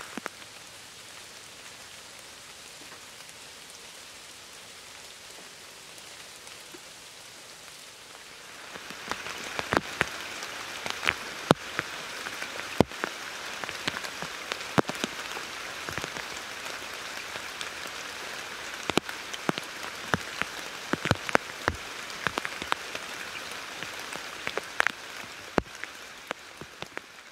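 Rain falling steadily. About a third of the way in it grows louder, with many sharp single drops striking close by among the steady patter.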